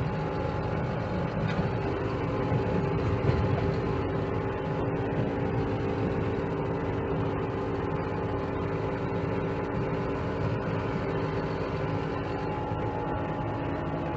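Dump truck's diesel engine running steadily as the truck is driven, a constant engine drone over low road rumble.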